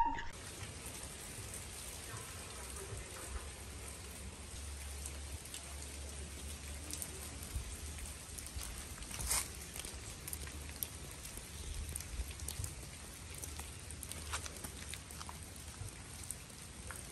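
Steady rain falling, an even hiss with scattered ticks of individual drops and one sharper drop tick about nine seconds in.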